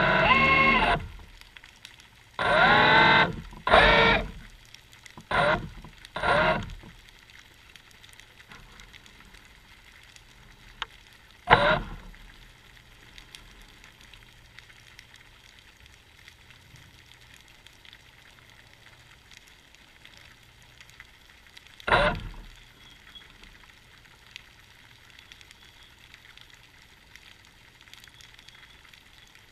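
A cat meowing: a run of loud, wavering calls in the first seven seconds, then single calls about 12 and 22 seconds in.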